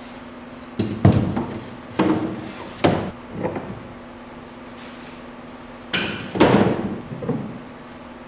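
A string of knocks and rustles from boards and plastic vacuum-bag sheeting being handled around a canoe hull, in two bursts with a pause between, over a steady low hum.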